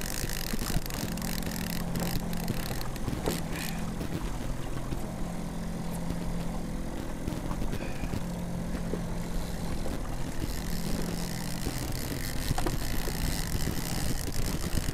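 Boat motor running steadily at trolling speed, a low hum that wavers in pitch every second or so.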